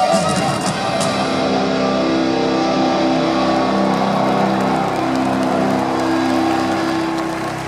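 Live metal band's distorted electric guitars closing a song: a few last hits in the first second, then a final chord held and ringing out over an arena crowd's noise.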